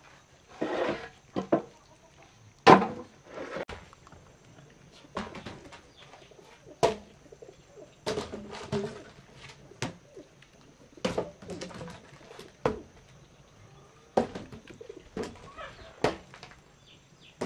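Wooden poles knocking against each other and on the ground as they are pulled off a pile and dragged, giving a dozen or so irregular sharp knocks with rougher scraping between them.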